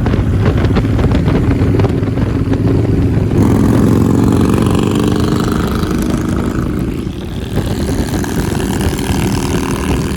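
Harley-Davidson Dyna Street Bob V-twin running through an aftermarket exhaust: a lumpy idle, then a rev starting about three and a half seconds in that drops back near seven and a half seconds to idle. It sounds clean.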